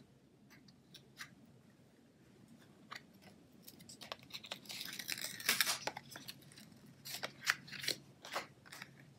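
Pieces of cardstock being handled and positioned by hand: light paper rustles and small clicks, a denser scraping rustle around the middle, then a few sharp clicks near the end.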